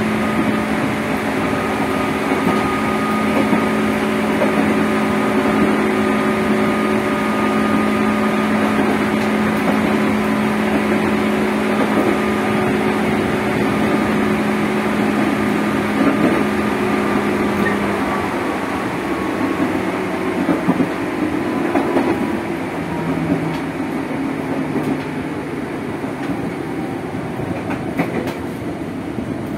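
Running sound inside motor car MoHa 205-270 of an ex-JR Musashino Line 205 series electric train: a steady whine from the traction motors and gearing over wheel and rail noise. After about eighteen seconds the whine sinks in pitch as the train slows.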